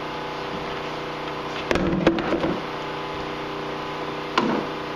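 Hollow knocks and clatters of a black plastic snowmobile panel being handled and set down on the sled: a cluster about two seconds in and one sharp knock near the end. A steady machine hum runs underneath.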